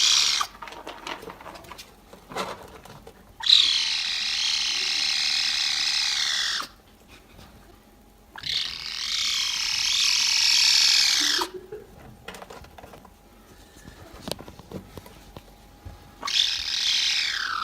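A cat letting out long, high, buzzing cries that sound like a laser beam, each held about three seconds with a wavering pitch. There are two full cries and a third, falling in pitch, near the end.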